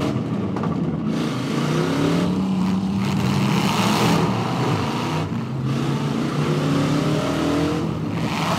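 Several demolition-derby pickup trucks' engines running and revving, their pitch rising and falling repeatedly as the drivers throttle up and back off.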